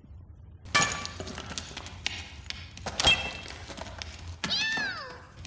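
Two sharp clattering knocks about two seconds apart, each with a brief ring, among smaller faint clicks. Near the end a cat gives one meow that falls in pitch.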